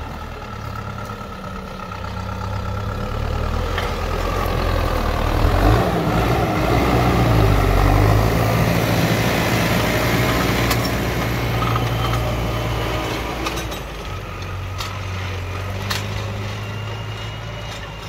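Tractor diesel engine pulling an 11-tine heavy-duty duck-foot cultivator through the soil. It grows louder as it approaches, passes close by about halfway through, and then fades as it moves away, with the scraping of the tines through the earth loudest as it goes past.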